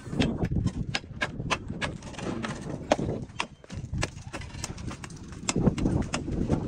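Steel masonry trowel knocking and tapping on cement blocks and mortar as the blocks are laid: quick, irregular sharp knocks, several a second.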